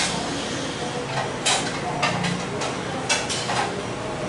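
Kitchen dishes and utensils being handled: about five short clinks and knocks over a few seconds, over steady room noise.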